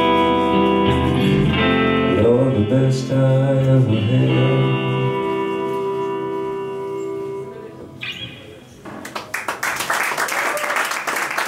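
A song sung to guitar ends on a long held final chord that dies away about eight seconds in. Audience applause then breaks out.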